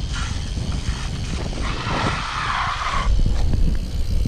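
Wind buffeting the microphone of a moving action camera, a steady low rumble, with a hissing rush lasting about a second and a half in the middle.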